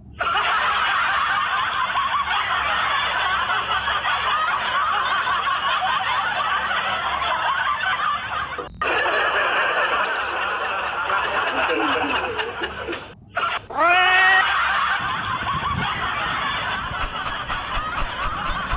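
Dense, continuous laughter from many people, like a canned laugh track, broken by two short gaps. Near the end a brief rising pitched sweep cuts in.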